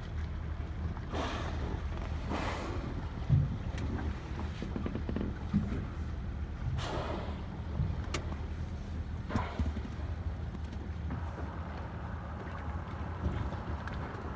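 Boat engine running with a steady low rumble. Several short rushing whooshes come over it, about a second in, two and a half seconds in, near the middle and near nine and a half seconds in.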